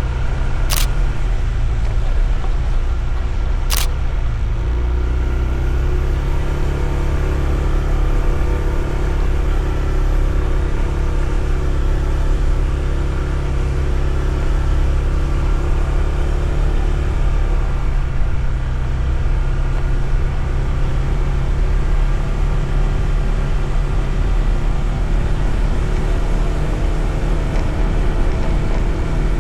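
Honda ADV 160 scooter's single-cylinder engine running under way, with steady road and wind rumble; the engine note shifts about five seconds in. Two sharp clicks sound near the start, about three seconds apart.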